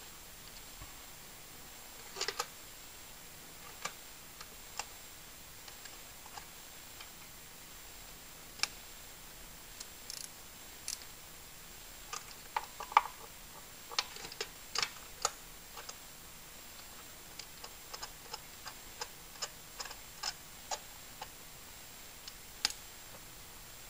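Irregular light clicks and taps of hand tools and parts being handled on a car engine during a spark plug and coil swap. The clicks come more often in the second half.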